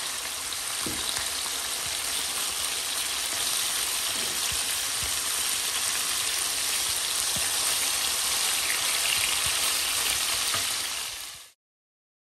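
Cubes of pork belly sizzling steadily in a frying pan as their fat renders out, with a few light knocks of a wooden spatula as they are stirred. The sound cuts off suddenly near the end.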